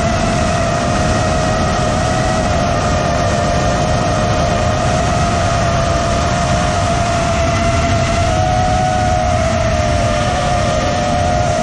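A 5-inch FPV quadcopter's brushless motors (T-Motor F40 Pro III, 2400 KV, spinning HQProp 5453 props) whining at a steady pitch in flight, with a low rumble underneath. The pitch lifts slightly about two-thirds of the way through and splits into two close tones near the end as the motors change speed.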